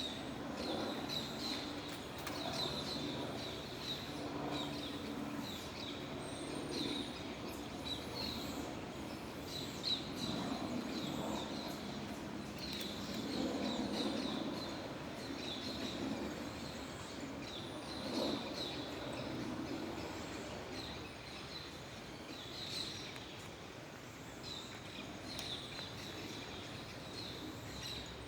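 Birds chirping, short high chirps repeating every second or so, over a steady low rumble.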